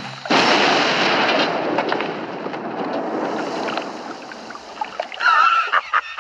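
Cartoon dynamite explosion: a sudden blast about a third of a second in, followed by a long noisy wash that slowly fades over about four seconds. Near the end comes a shrill, wavering, stuttering cry from the cartoon dog.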